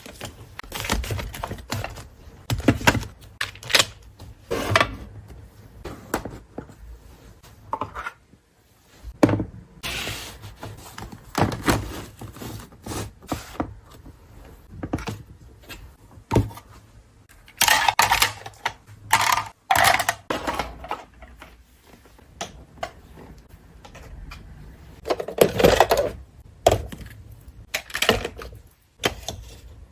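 Irregular clicks, taps and knocks of small hard objects being handled and set down on a desk, with a few longer scraping or shuffling sounds.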